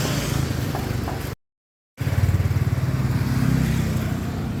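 An engine running steadily with a low, pulsing hum, broken by a half-second gap of silence about a second and a half in.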